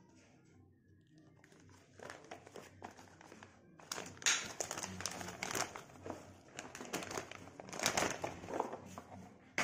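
Clear plastic packaging bag crinkling as a plastic toy dump truck is worked out of it. It starts about two seconds in, with the loudest crackles about four and eight seconds in.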